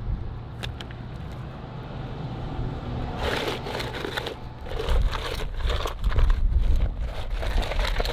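Leather shoe being rubbed and scraped against loose gravel and dirt on asphalt, a gritty crunching scrape. Quieter at first, then a run of scraping strokes from about three seconds in.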